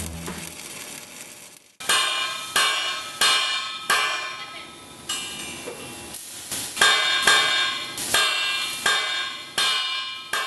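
A hammer striking metal, about a dozen ringing blows at roughly two a second, with a short pause midway.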